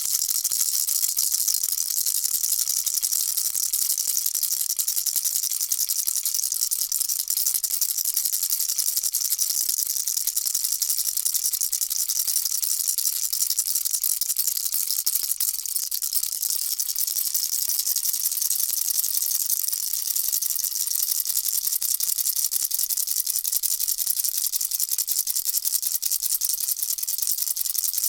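Baby rattle shaken continuously: a dense, steady rattling with a faint ringing tone underneath.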